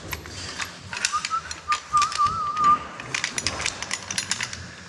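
Metal caving gear clicking and clinking: karabiners, cow's tails and descender being handled at a rebelay on a rope. A short wavering whistle sounds for about a second and a half, starting about a second in.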